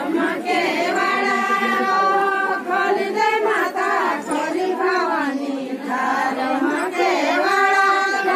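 A group of women singing a song together in unison, with sustained notes that rise and fall in pitch.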